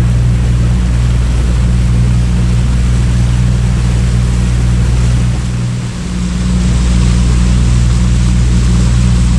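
Outboard motor of a small aluminium runabout boat running steadily at low cruising speed. Its hum dips briefly about six seconds in, then comes back.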